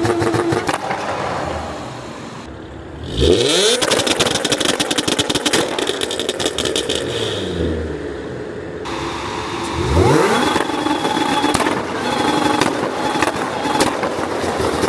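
Audi B8 S4's supercharged 3.0-litre V6, running through test pipes (catalytic converters removed) on a pops-and-bangs tune, revved twice onto its 2-step launch-control limiter. The revs rise about three seconds in and again about ten seconds in. Each time the engine then holds on the limiter for several seconds with rapid crackling and popping from the exhaust.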